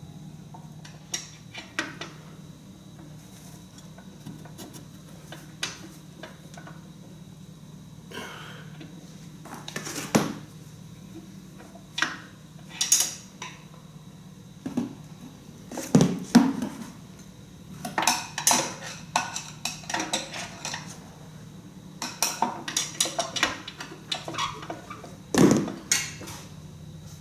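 Metal parts of a blown tractor engine clinking and clanking as they are handled and set down, in irregular knocks that come thicker in the second half, over a steady low hum.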